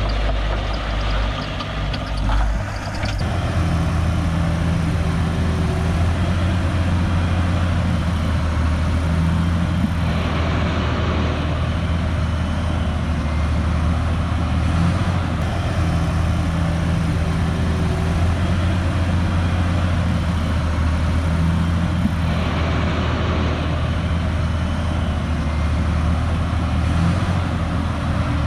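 Heavy diesel engine of earthmoving equipment running steadily, picking up in pitch and loudness about three seconds in and holding there.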